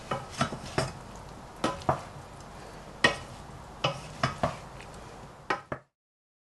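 Wooden spatula stirring cauliflower and potatoes in a nonstick saucepan: about a dozen irregular knocks and scrapes against the pot over a faint sizzle. The sound cuts off abruptly about a second before the end.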